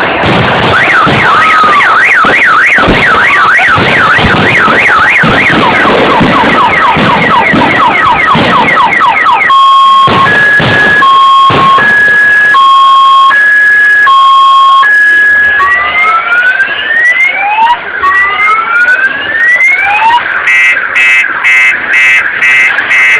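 Car alarm cycling through its tone patterns. First comes a fast warbling wail over a noisy background, then a steady two-tone alternation from about ten seconds in, then repeated rising whoops, and near the end rapid chirps.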